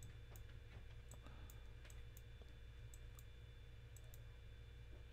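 Faint computer mouse clicking, about ten sharp, irregularly spaced clicks over a low steady electrical hum.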